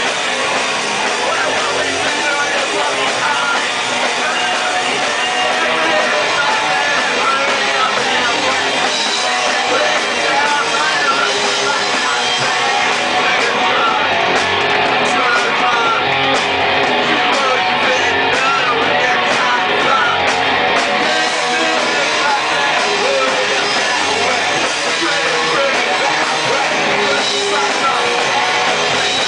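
Live rock band playing loud, with electric guitar and drums.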